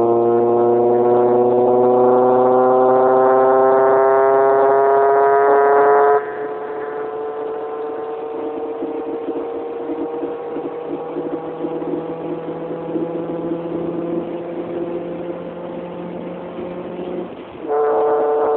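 Honda Civic giving off a loud, horn-like tonal howl whose pitch creeps slowly upward. It cuts off abruptly about six seconds in, a weaker buzzing tone carries on, and the loud howl comes back near the end. It is an abnormal noise from the car, too loud for the phone recording it.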